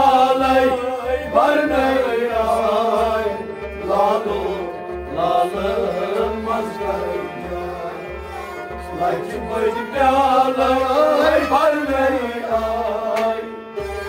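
Kashmiri Sufi devotional song: men singing a melismatic line over a harmonium and a stringed instrument, with a drum keeping a steady beat about twice a second.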